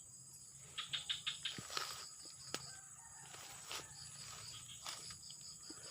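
Chickens clucking, a quick run of short calls about a second in, over a steady high insect drone with a repeating chirp.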